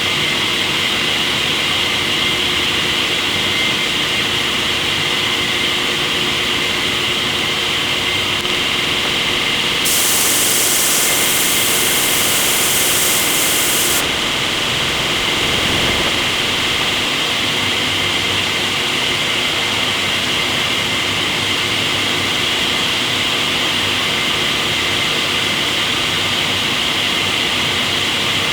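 Sawmill machinery running steadily, a loud even drone with a high hiss; about ten seconds in, a sharper high hiss joins for about four seconds and then stops abruptly.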